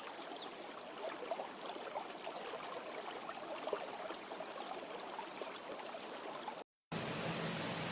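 Small stream trickling and gurgling, which cuts off abruptly near the end. After a brief gap a different recording starts with a steady low hum and a short high squeak.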